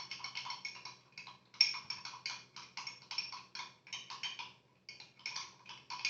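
A spoon stirring a thick mix of egg yolk and honey in a glass, clinking against the glass about five times a second with short ringing tones. The clinking pauses briefly a little before the end.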